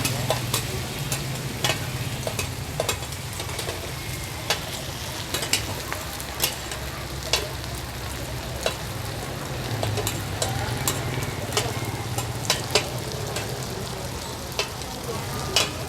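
Rice-flour cake and egg sizzling in hot oil in a large pan, with a metal spatula clanking sharply against the pan about once a second at irregular intervals, over a low steady hum.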